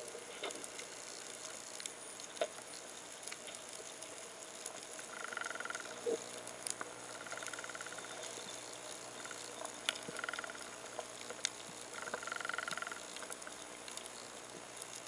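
Underwater reef soundscape: a steady faint hiss full of scattered sharp clicks and crackles, with four short buzzing bursts of about a second each in the middle part.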